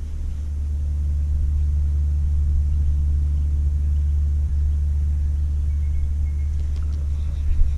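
A steady low engine rumble that swells up during the first second and then holds even.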